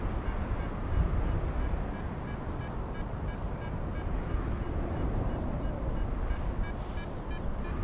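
Wind rushing over the camera's microphone in paraglider flight: a steady, gusty low rumble.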